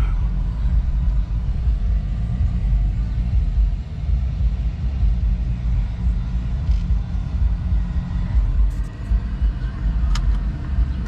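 Steady low rumble of a vehicle on the move, heard from inside it, with a couple of sharp clicks near the end.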